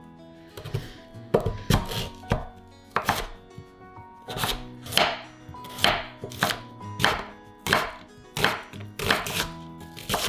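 Kitchen knife chopping food on a cutting board: a long run of cuts, about one or two a second.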